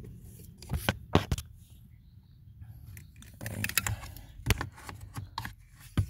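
Scattered sharp clicks and light scrapes of plastic and metal as a hand works an HVAC blend door actuator and its bracket loose from their mounting tabs and pulls them out: a few clicks about a second in, then a denser run of them in the second half.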